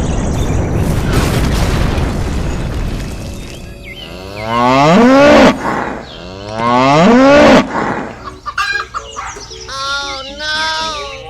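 A cow mooing twice, two long loud moos about two seconds apart, after a few seconds of dense rushing noise; shorter wavering pitched calls follow near the end.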